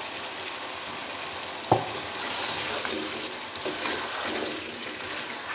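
Chicken and potato pieces sizzling in ghee in a pot while being stirred and fried with a ladle. There is one sharp clink of the ladle against the pot a little under two seconds in, with softer scrapes around it.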